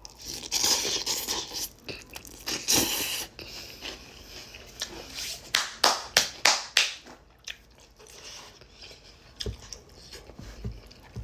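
Crunchy bites and chewing of pork skins close to the microphone, with a quick run of crunches about six seconds in.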